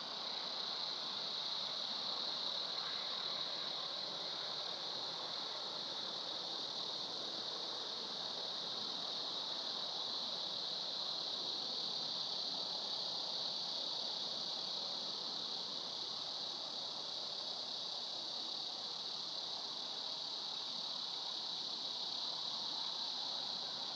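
Steady high-pitched insect chorus over a soft, even hiss, with no distinct events.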